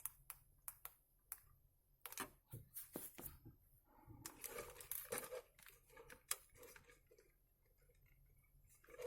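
Faint, scattered clicks and brief rustles of small plastic parts being handled, as a charging plug is worked in the headset's suspect charge port.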